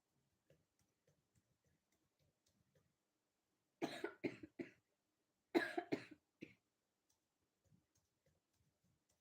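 A person coughing in two short fits of three or four coughs each, about four and six seconds in.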